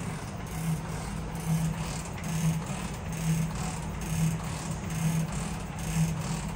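Stanko 7A420 vertical slotting machine running, its rotary table turning in feed. A low hum swells and fades in an even rhythm, a little more than once a second.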